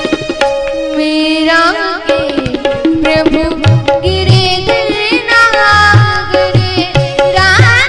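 Indian devotional song: a woman's voice sings ornamented, gliding phrases over tabla, with steady held notes underneath. The tabla strokes come in about halfway through.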